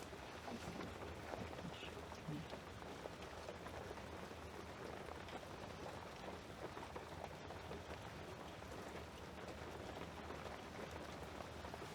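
Heavy rain falling outside, heard from indoors as a steady patter with scattered small drips.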